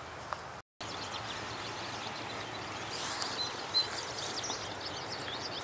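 Outdoor ambience: small birds chirping and twittering over a steady background hiss. The sound cuts out completely for a split second just under a second in.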